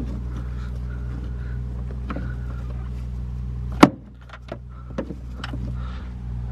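Metal tool clicks and clinks as a half-inch socket and extension are fitted onto a 74 mm oil filter cap wrench, with one sharp, loud click near the four-second mark, over a steady low hum.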